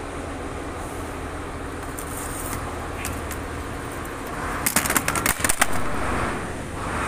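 Steady workshop background hum, with a quick cluster of sharp clicks and clatter about five seconds in.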